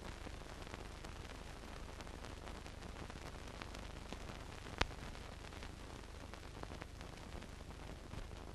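Hiss and faint crackle of a silent film's blank soundtrack, with a low hum under it and one sharp pop nearly five seconds in.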